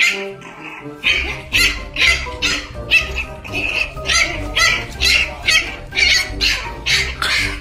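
French bulldog puppy giving short yaps about twice a second as a hand pats and pushes at it, over background music with a steady bass beat that comes in about a second in.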